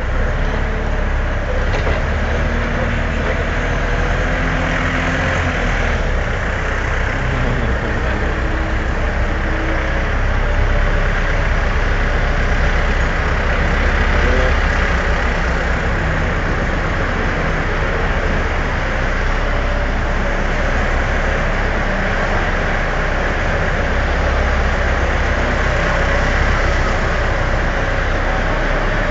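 Small forklift's engine running steadily as it drives along, heard from on board: a continuous low rumble with a wash of mechanical and rolling noise, recorded through a mobile phone's microphone.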